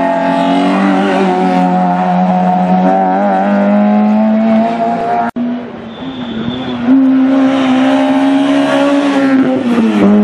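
Rally car engines running hard at high revs on a tarmac stage: one car's engine note, then after an abrupt break just past halfway, another car at full throttle, its pitch dipping and climbing again near the end as it shifts gear.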